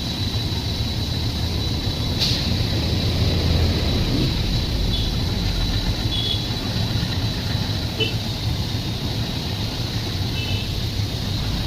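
Train running: a steady low rumble with a constant thin high whine over it, a sharp click about two seconds in, and a few faint short squeaks later on.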